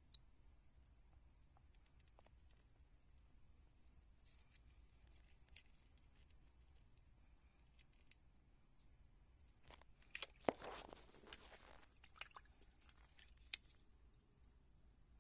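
Near silence with a faint steady high whine, a few isolated light clicks, and a brief cluster of clicks and scraping or crunching about ten seconds in, like small objects being handled.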